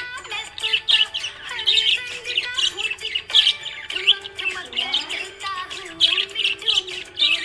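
Budgerigars chirping and warbling in rapid, busy bursts, with background music underneath.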